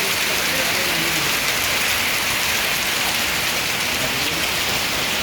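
Heavy rain pouring down, a dense, steady hiss with no letup.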